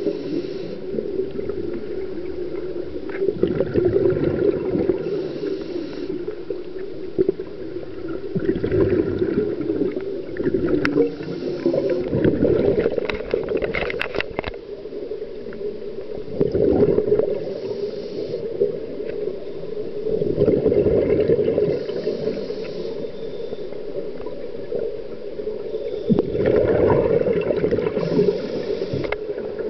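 Scuba diver's regulator breathing, heard underwater: a short hiss on each inhale, then a gurgling rush of exhaled bubbles, about every five to six seconds, over a steady hum.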